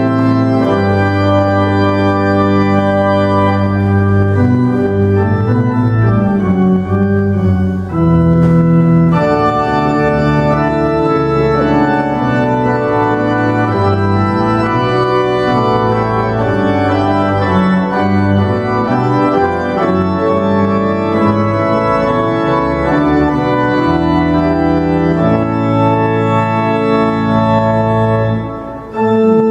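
Cathedral pipe organ playing a slow piece in held chords that change every second or two, with a brief break near the end.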